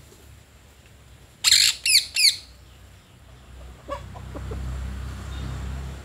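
Rose-ringed parakeet giving three loud, harsh screeching calls in quick succession, about a second and a half in. A low rumble follows near the end.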